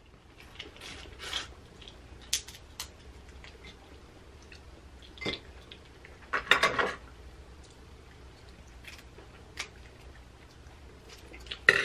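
Crab-leg shells being cracked and picked apart by hand: scattered small cracks and clicks, with a louder burst about six and a half seconds in.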